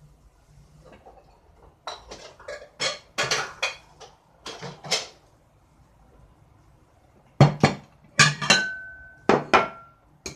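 Dishes clattering as a metal bowl and a ceramic plate are knocked together and set down: a cluster of clinks and knocks about two seconds in, then louder ones after about seven seconds, two of which leave a short ringing tone.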